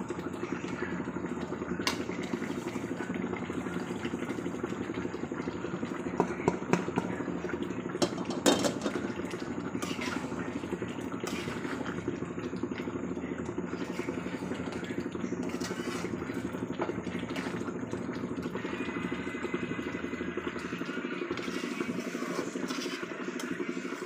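Curry cooking in an aluminium pan on a gas stove: a steady low rushing noise, with a metal spatula clinking and scraping against the pan now and then, mostly in the first half.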